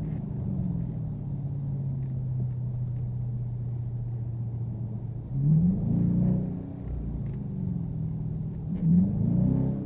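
Car engine and road noise heard from inside the cabin while driving. The engine note rises briefly twice, about five and nine seconds in.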